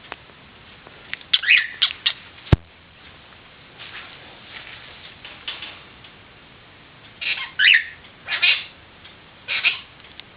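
Pet parrot calling in short bursts: a quick cluster of calls about a second in, then three separate calls in the last few seconds, with softer chatter between. A single sharp click sounds about two and a half seconds in.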